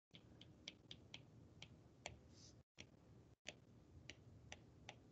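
Faint clicks of a stylus tip tapping a tablet's glass screen while handwriting, irregular, roughly three taps a second, over low background noise.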